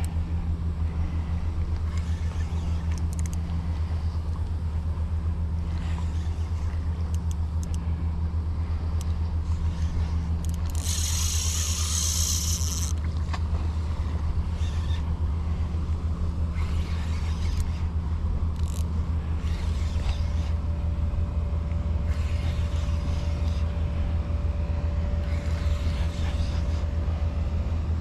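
Steady low motor hum, with a short loud hiss lasting about two seconds, about eleven seconds in.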